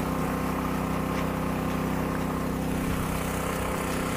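An engine running steadily at idle: a constant hum holding several fixed tones, with no change in speed.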